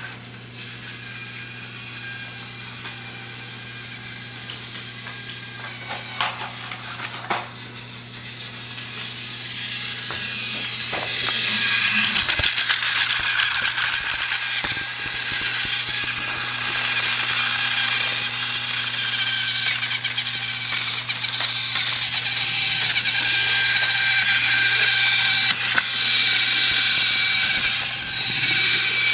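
Battery-powered toy Thomas the Tank Engine running on plastic track: the small motor whirs with a steady high whine while the wheels rattle over the track. It grows much louder about ten seconds in, as the engine comes right up to the microphone, and stays loud.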